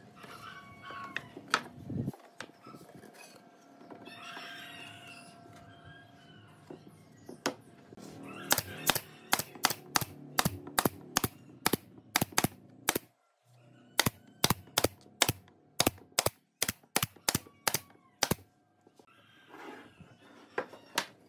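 Pneumatic brad nailer firing nails through pine slats into a frame, about two dozen sharp shots at roughly two a second with a short pause partway. A few knocks of wood being handled come first.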